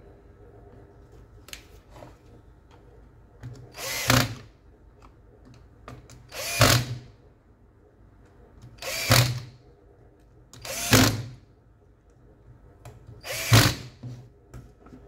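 A cordless drill/driver runs in five short bursts, each under a second, driving the housing screws of a Makita HP347D drill.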